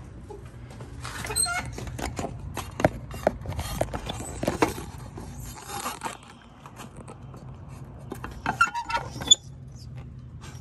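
A metal mail-slot flap in an old wooden door being pushed open and held, squealing about a second and a half in and rattling and clicking as it moves. It squeaks again near the end, with a sharp clack.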